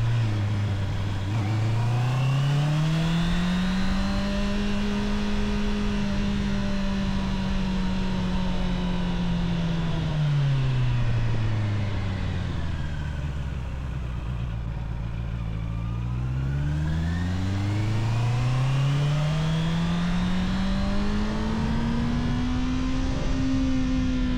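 Honda CBR650R inline-four engine through its stock exhaust, under way. Its note dips just after the start, climbs and holds steady, then drops low as the bike slows around the middle, and climbs again as it accelerates near the end.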